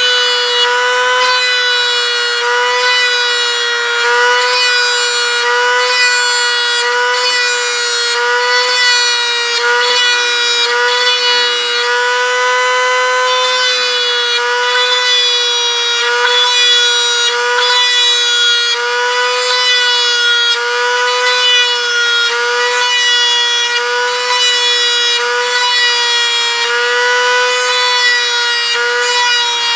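Dremel rotary tool running at high speed with a steady high whine, its pitch wavering slightly as a sharpened brass tube in its chuck is pressed against the model's skin to cut rivet impressions.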